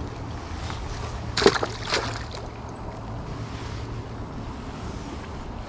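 Steady rush of flowing creek water with wind rumble on the microphone, broken by two short sharp noises about a second and a half and two seconds in.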